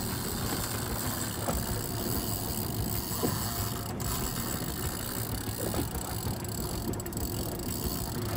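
Outboard engine of a small single-engine boat idling steadily under wind and sea noise.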